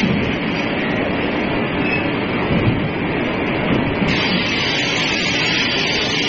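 Steady rumbling and clattering of heavy forge-shop machinery running, with no hammer blows struck.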